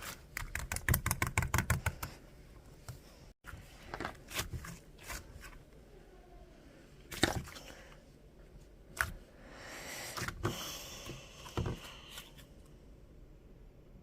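Clay slime being squeezed and pressed by hand, making sticky clicks and pops: a fast run of clicks in the first two seconds, then scattered single pops, and a soft crackling stretch near the end.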